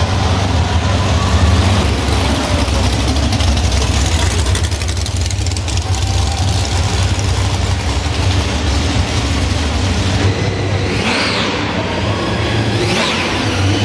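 Muscle car engines rumbling deeply as the cars move along slowly, with some revving. Near the end there are two brief high-pitched sounds that rise and fall.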